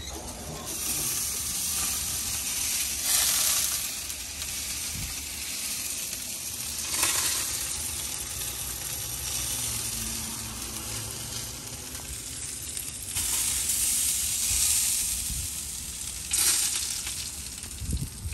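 Pork butts sizzling on the wire racks of a smoker, a steady hiss that rises just after the start and swells and fades several times.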